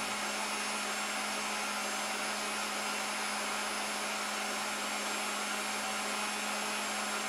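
Electric meat grinder running steadily with a constant hum, driving sausage meat through its stuffing tube into natural casing.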